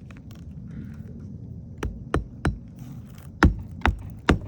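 A hammer driving roofing nails through a lifted asphalt shingle into the roof deck: six sharp blows in two groups of three, starting about two seconds in, the second group louder.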